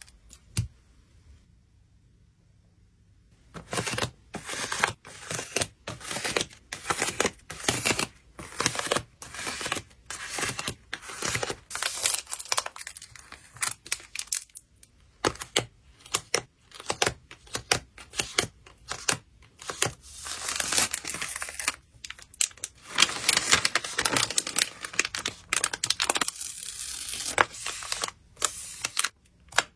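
Plastic and paper packing materials being handled for photocard packing: quick, dense crinkling and tearing sounds, beginning about three and a half seconds in after a near-quiet start.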